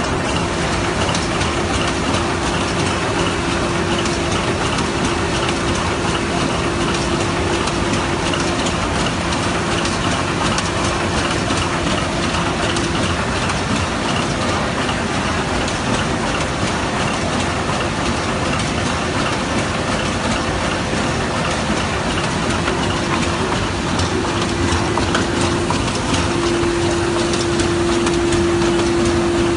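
Smyth Freccia 150 L book-sewing machine running: a fast, steady mechanical clatter of its sewing and feeding mechanism, with a steady hum underneath that drops out partway through and returns near the end.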